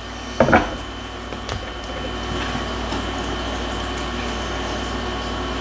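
A brief sound about half a second in, then a steady mechanical hum with a thin high whine that grows slightly louder from about two seconds in, like a room air conditioner or fan running.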